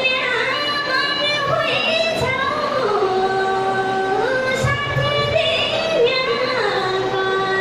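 A woman singing a Far-Western Nepali thadi bhaka folk tune into a microphone, holding long drawn-out notes that slide up and down between pitches, with a falling slide into a lower held note twice.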